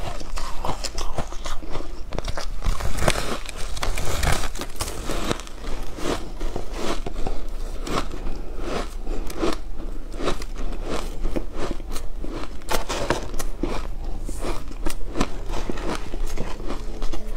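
Crunching and chewing of compacted shaved ice dusted with matcha powder: a dense, irregular run of crisp crunches as mouthfuls are bitten and ground.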